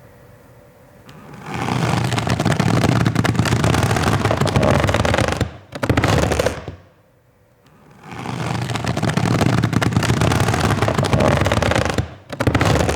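Foley sound effect made with everyday objects, recreating the slashing of Sukuna's Domain Expansion: a dense, rapid rattling clatter of many small hits. It starts about a second in and runs about four seconds, then a short burst, a brief pause, another long stretch of the same clatter, and a last short burst near the end.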